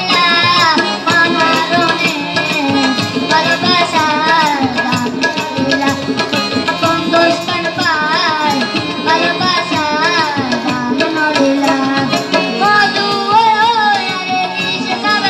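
A boy singing a Bengali song through a microphone and stage speakers, accompanied live by tabla with quick, steady drum strokes, along with harmonium and violin.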